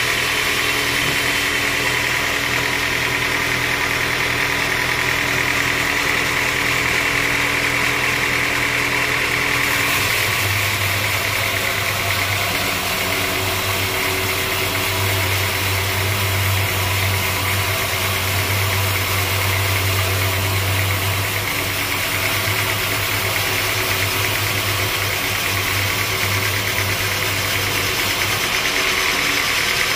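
Band sawmill running with its blade cutting lengthwise through a mahogany log: a steady machine hum under the blade's continuous noise in the wood. The low hum grows stronger about ten seconds in.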